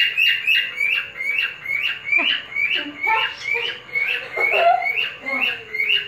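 Cockatiel calling: a fast, steady run of short chirps, each falling in pitch, about three a second, with a couple of lower gliding notes in the middle.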